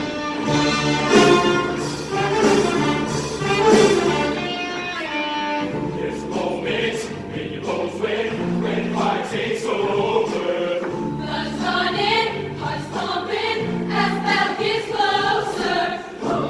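Show choir singing full-voiced over instrumental backing, with loud accented ensemble hits in the first few seconds, then continuous choral singing.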